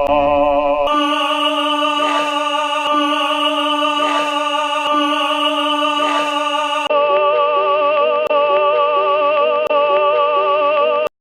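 Recorded operatic tenor singing a long held note with a wide vibrato over a sustained accompaniment note. About seven seconds in it cuts to an older-sounding, duller recording of the voice with the accompaniment moving in short notes beneath. The sound stops abruptly just before the end.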